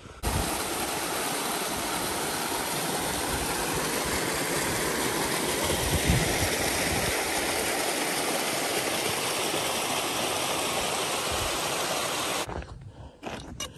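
Small mountain stream cascading over rocks: a steady rush of water that starts and cuts off abruptly, followed by a few faint clicks near the end.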